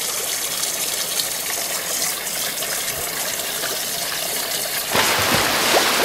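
Whitewater rapids rushing and churning right beside an inflatable raft, a steady loud rush that swells about five seconds in.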